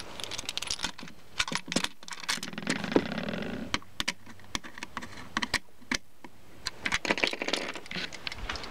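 Irregular plastic clicks and rattles from handling a Plarail toy train of the Tokyo Metro Tozai Line 15000 series while it is tried out after repair, with a denser stretch of rustling and rattling about three seconds in.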